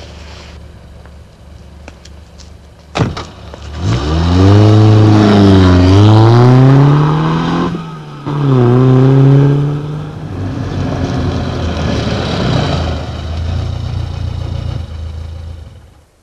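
Volvo P1800 sports car engine: a low idle, a sharp thump about three seconds in, then the car pulling away hard, its engine note climbing, dropping at a gear change about eight seconds in, climbing again and settling into a steady run before cutting off near the end.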